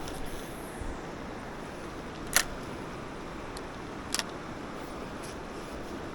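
Steady rushing of a fast river current, with two sharp clicks about two and a half and four seconds in, and a couple of fainter ones.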